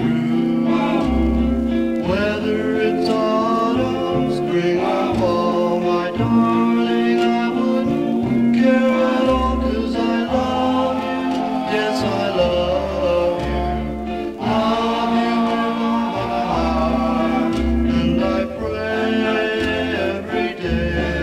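A 1961 pop record playing: singing over guitar and a stepping bass line.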